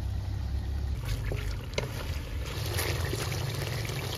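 Chicken pieces in hot broth simmering in a steel pot while a wooden spatula stirs them, with a couple of sharp clicks about a second in and a hissing, bubbling sound building from about halfway, over a steady low rumble.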